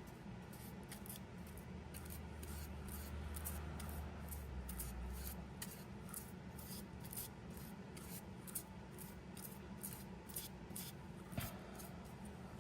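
Small bluing brush scrubbing liquid gun bluing onto the steel parts of a vintage Craftsman ratchet: faint, short scratchy strokes, about two or three a second, with one sharper tick near the end.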